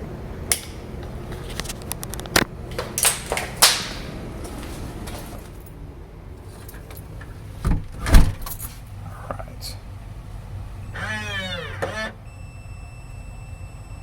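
Kwikset 910 smart deadbolt being worked from the outside: a series of clicks and knocks, a heavy thump partway through, then the lock's motor whirring for about a second as it drives the bolt. A steady beep about a second and a half long follows, given as the bolt locks without fully engaging, the bolt binding on the strike.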